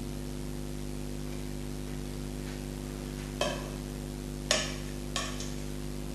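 Three sharp clicks of kitchen utensils knocking against a hard dish, about a second apart in the second half, over a steady low hum.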